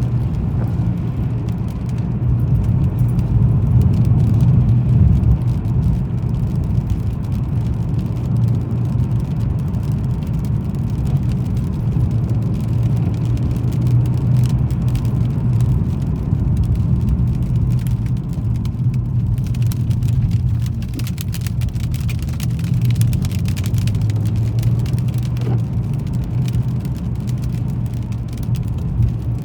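A car driving steadily along a road, a continuous low rumble of engine and tyres. From about two-thirds of the way in, a light crackling patter of small ticks is added on top.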